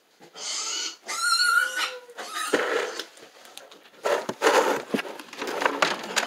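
A pet animal making a run of short, irregular noisy sounds close to the microphone, with a brief higher-pitched call about a second in.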